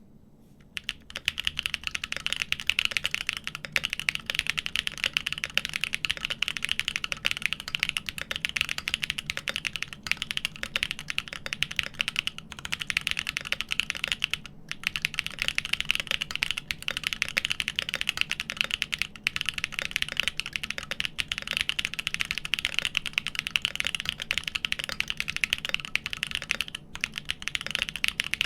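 Fast, continuous typing on a GEON FROG TKL mechanical keyboard with an aluminium plate, lubed Everglide Dark Jade Black switches on 72g springs and Infinikey keycaps. It starts about a second in, with a few brief pauses between bursts of keystrokes.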